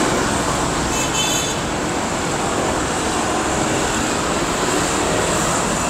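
Steady roadside traffic noise from passing vehicles, with a brief faint high-pitched tone about a second in.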